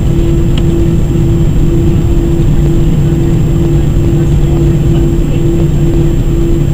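Airbus A319-100 cabin noise while taxiing: the jet engines run at idle with a loud, steady hum over a low rumble, heard from inside the cabin.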